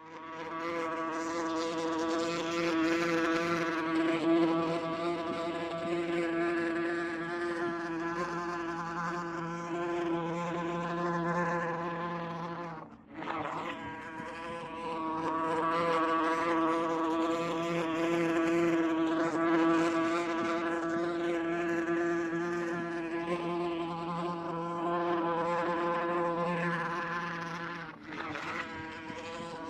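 Wasp buzzing in flight: a steady, low-pitched buzz rich in overtones. It fades sharply for a moment about 13 seconds in and dips again near 28 seconds, then picks back up.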